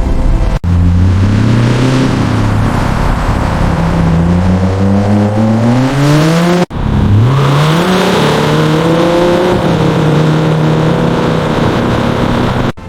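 Car engine revving and accelerating, its pitch climbing steadily for a few seconds at a time. It comes in edited takes, split by abrupt cutoffs, with a quick rise and then a steady drone after the second cut.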